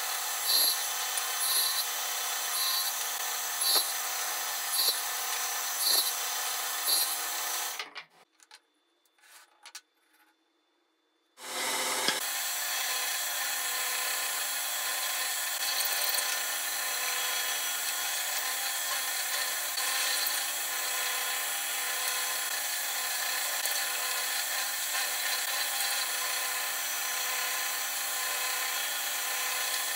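Homemade bench machine, a saw motor shaft driving a drill chuck with a 12 mm bit, running steadily while wood is pressed onto the bit to cut mortises, with louder cutting pulses about once a second. It stops about eight seconds in, with a few light knocks in the pause, and starts running again about three seconds later.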